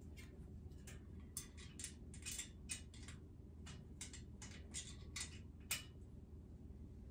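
Faint, irregular light clicks and scrapes of metal parts as a metal dresser frame is put together by hand, two or three clicks a second.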